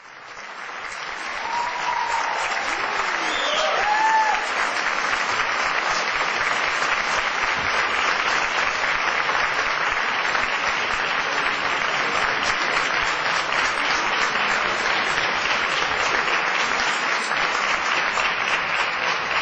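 Theatre audience applauding: the clapping swells over the first two seconds and then holds steady. A few brief voices or whistles rise above it about two to four seconds in.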